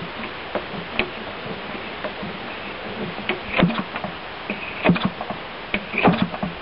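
Irvine 120 model airplane engine being turned over by hand without firing: a series of irregular knocks and clicks from the propeller and engine, loudest around the middle and near the end. The owner notes that this engine has low compression when turned by hand.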